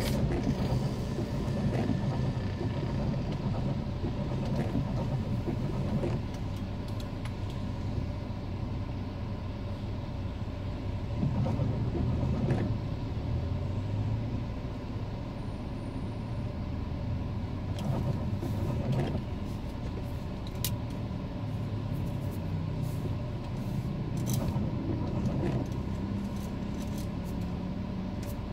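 Car driving in the rain, heard through a dashcam: steady engine and road rumble with scattered faint ticks.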